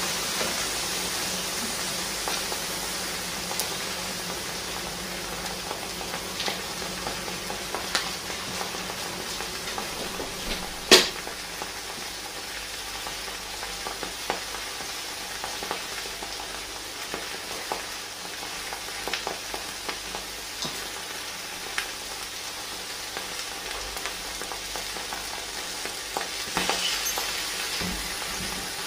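Molten lava hissing and sizzling as it burns into a laptop, with scattered crackles and pops. One sharp pop about eleven seconds in is the loudest, and the crackling picks up briefly near the end as flames catch.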